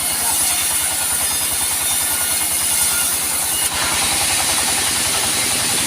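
Sawmill cutting teak: a steady rhythmic machine drone with the hiss of the saw over it, the hiss turning brighter and harsher about two-thirds of the way through.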